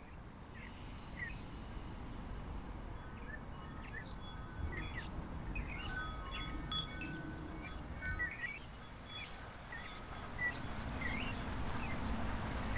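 Metal-tube wind chime tinkling: its tubes strike at irregular moments and ring on in clear, overlapping tones over a low, steady background hum.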